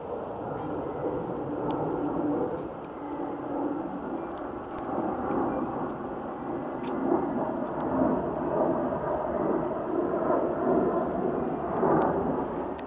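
Jet engine noise of an Airbus A321 airliner climbing out overhead: a steady rumble that swells and eases a little.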